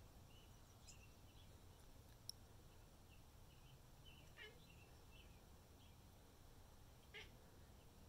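Faint birdsong from a nature video playing through laptop speakers, with a domestic cat giving two short chirps, about halfway through and near the end. There is a single faint click a little after two seconds in.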